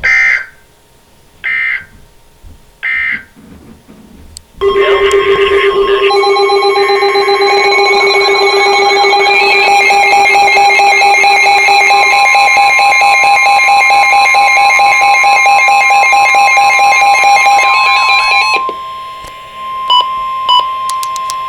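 Emergency Alert System signalling between two broadcast warnings: three short digital data bursts about a second and a half apart, the end-of-message code of the previous alert. About four and a half seconds in, a loud steady electronic alert tone starts, several pitches together with warbling data noise. It holds for about fourteen seconds, then drops to a single steady tone with two short beeps near the end.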